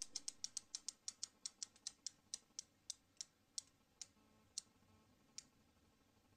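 A run of sharp ticks that slow steadily, from several a second to one every half second or more, and stop a little after five seconds in: the wheel of a motorcycle lying on its side, spinning down to a stop.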